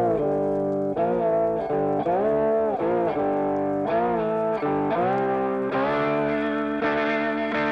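Background music: a melodic electric guitar line with bends and sustained notes.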